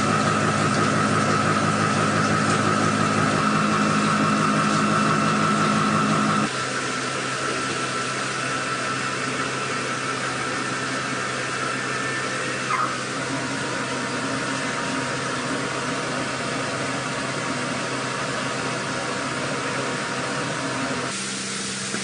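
Machining equipment running steadily: a continuous mechanical hum with a whine and machine noise over it. The sound changes suddenly about six seconds in, again about halfway through, and near the end.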